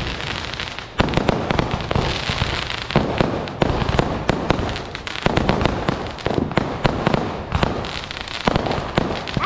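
Many fireworks bursting in the sky at once: a dense, irregular run of bangs and crackling, with sharp loud bangs about a second in and again about three seconds in.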